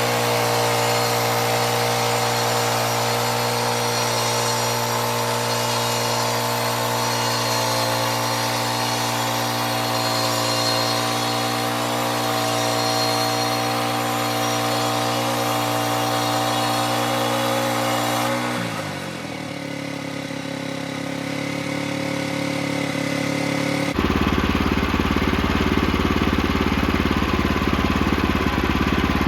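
Small gasoline engine of a portable sawmill running steadily at high speed. About two-thirds through it winds down to a lower speed, then a louder, rougher engine sound starts abruptly.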